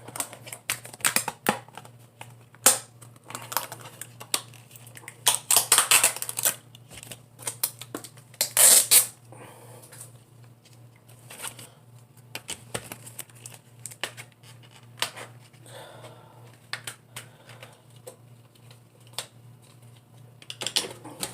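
Plastic CD jewel case and its paper insert being handled and pulled apart: an irregular run of clicks, taps and snaps, with louder rustling of paper and plastic about a third of the way in and again a few seconds later, over a faint steady low hum.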